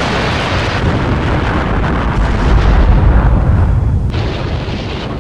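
Explosion sound effect for an animated volcanic blast: a long rumbling roar with a deep boom that swells to its loudest about three seconds in, then dies away.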